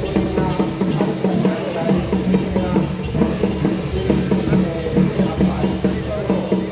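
Music with a steady drum beat, bass and snare drums over sustained held tones.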